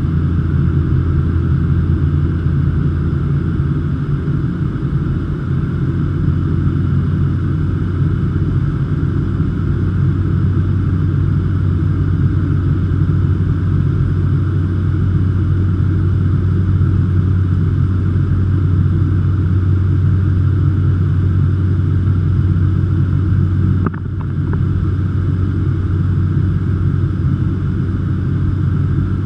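Cessna 208 Caravan's single Pratt & Whitney PT6A turboprop and propeller droning steadily, heard from inside the cockpit on approach. Near the end a brief click comes, and the drone turns slightly quieter for a moment.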